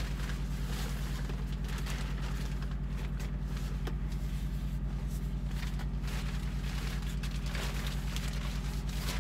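Semi truck's diesel engine idling steadily, heard from inside the sleeper cab as a low, evenly pulsing rumble. Faint rustling of a plastic shower curtain and a few light handling clicks sit on top.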